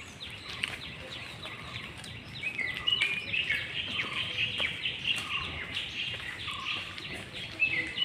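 Birds chirping: many short, quick, falling chirps, busier and louder from about two and a half seconds in.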